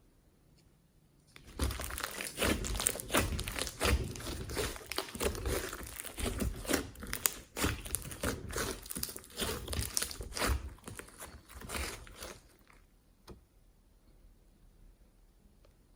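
Slime being squeezed and worked by hand: a dense run of wet crackling and crunching that starts about a second and a half in and stops near the end, with one more click after it.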